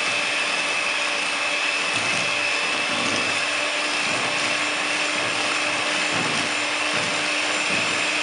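Electric hand mixer running steadily, its beaters whirring through thin cake batter, with a steady high-pitched motor whine.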